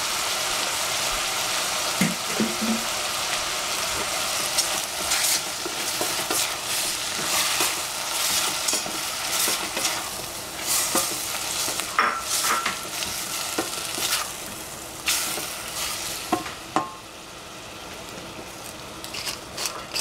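Shrimp and sliced capsicum sizzling in a stainless steel saucepan as they are stir-fried. A wooden spatula repeatedly scrapes and knocks against the pan. The sizzle grows quieter near the end.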